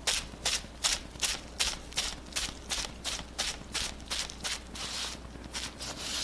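Crumpled bubble wrap loaded with wet paint dabbed repeatedly onto card stock: a crisp plastic-on-paper pat about three times a second.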